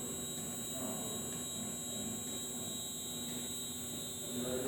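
CNC milling machine jogging along its Z axis: a steady electric hum and buzz from the axis drive motor, with a thin high-pitched whine that cuts off at the very end.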